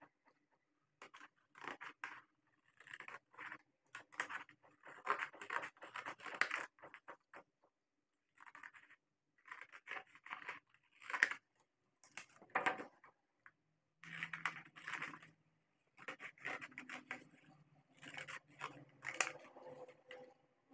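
Scissors cutting through laminated glossy photo-paper flashcards: runs of crisp snips and plastic rustles, broken by short pauses while the sheet is turned.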